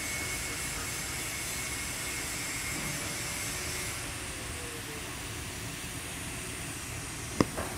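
TIG welding arc running steadily on a carbon steel pipe during a fill pass: a steady hiss with a faint high whine that fades about halfway through. A single sharp click near the end.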